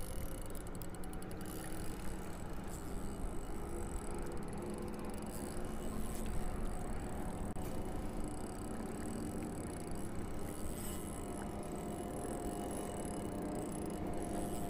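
Spinning reel being cranked as a hooked white bass is fought in, over steady wind and water noise. A quick run of fine clicks comes about half a second in, with a faint steady hum underneath.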